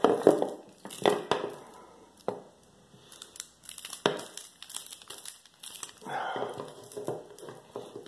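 Small wire cutters biting into the steel strands of a Kryptonite braided-steel cable bike lock: a few sharp snaps in the first four seconds, about a second apart, then rustling and crinkling as the coated cable is twisted and worked in the hands.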